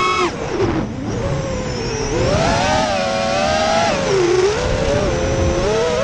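FPV quadcopter's electric motors and propellers whining, heard close up from the drone's onboard camera. The pitch drops sharply a fraction of a second in, then rises and falls repeatedly as the throttle changes.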